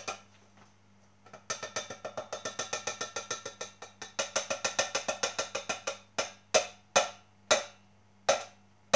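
Tin can rapped against the rim of a metal saucepan to knock out the last of its contents: quick metallic taps, about eight a second, then a few slower, louder knocks near the end.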